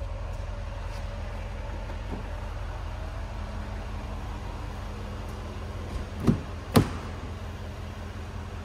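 Two solid knocks about half a second apart, roughly six seconds in, from the car's boot storage area being handled and shut, over a steady low hum.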